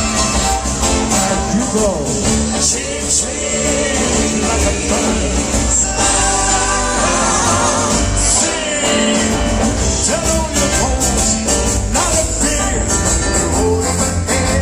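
Live band music with singing, played loud over an outdoor stage PA and heard from within the crowd. A held, wavering sung note comes about halfway through.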